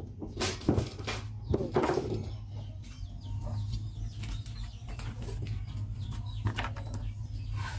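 Chickens clucking, over a steady low hum, with a few sharp knocks and clatter of hand tools being handled in the first couple of seconds.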